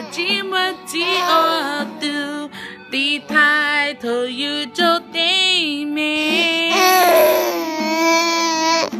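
A song playing: a woman singing long, wavering notes over a steady musical backing.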